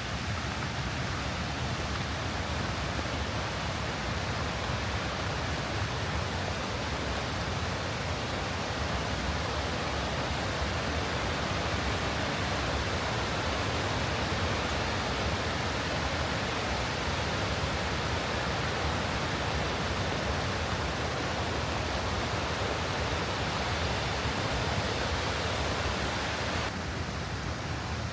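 Waterfall and creek water rushing steadily, an even hiss with no breaks; the highest part of the hiss drops a little near the end.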